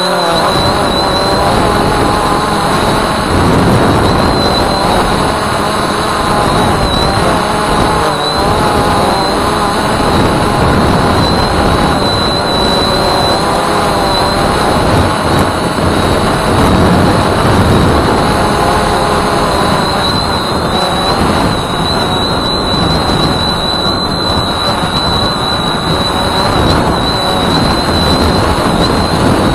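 Walkera Voyager 3 quadcopter's electric motors and propellers running, heard from the drone itself: a buzzing drone whose pitch wavers up and down as the throttle changes, over a steady high whine and a rush of air.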